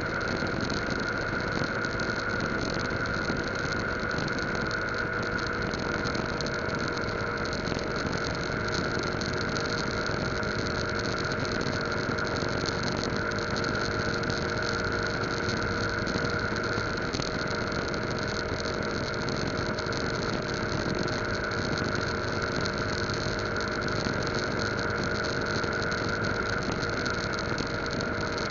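Yamaha Lagenda 115Z motorcycle's single-cylinder four-stroke engine running steadily while riding, a constant drone with a high whine over it, mixed with road noise.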